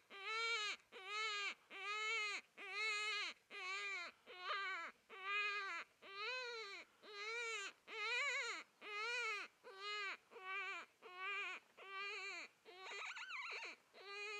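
Cottontail rabbit distress cries blown on a mouth diaphragm predator call to bring in coyotes: a steady run of short, high crying notes, about one and a half a second, each rising and falling in pitch, with a more wavering cry near the end.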